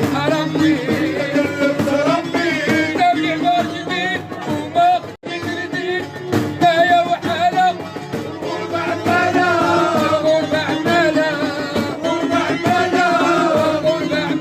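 Music with a singing voice whose pitch bends and wavers, over drums and other instruments. The sound cuts out for an instant about five seconds in.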